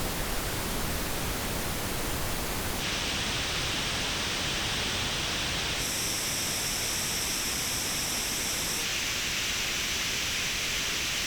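Pink noise test signal played through reference headphones and recorded via an artificial ear simulator, as a steady hiss. Its treble colouring changes abruptly three times, about every three seconds, as the playback switches between headphones: each shows its own peaks and dips in the highs.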